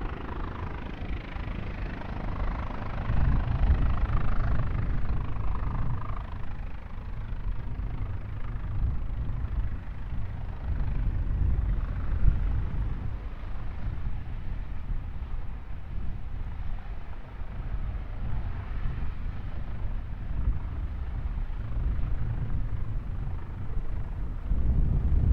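Low, uneven rumble of airliner jet engines, swelling a few seconds in, with a fainter higher whine over it during the first few seconds.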